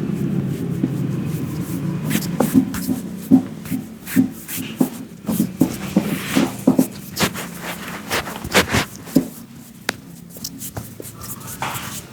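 A barber's hands slapping, tapping and rubbing on a customer's head and skin during a head massage: a run of short, sharp, uneven strikes, two or three a second.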